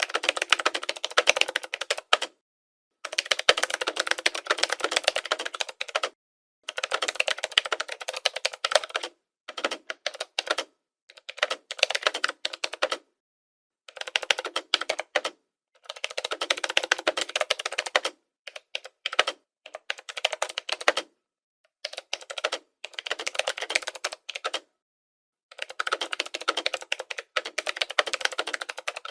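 Typing on a computer keyboard: fast runs of key clicks lasting one to three seconds each, broken by short silent pauses.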